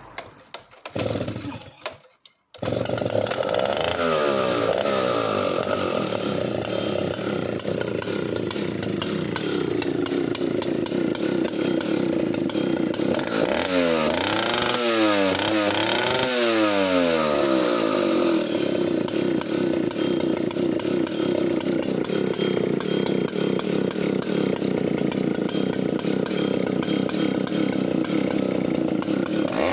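Solo 60135 92 cc two-stroke chainsaw being pull-started on part choke: a couple of pulls, then it fires about two and a half seconds in and keeps running. Its low idle is broken by several quick revs of the throttle about halfway through before it settles back.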